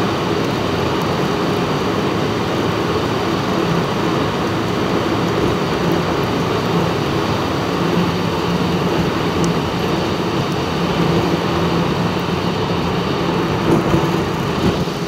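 Steady road noise inside a moving car's cabin: engine and tyres running evenly with a constant low hum.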